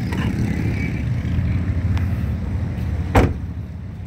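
A vehicle engine idling with a steady low hum, and one sharp knock about three seconds in.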